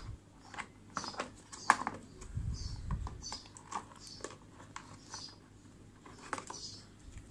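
Irregular light clicks and knocks of plastic and cable being handled: the flexible shaft and cord of a mini rotary grinder kit pulled out of the clips of its moulded plastic case, with one sharper click a little under two seconds in.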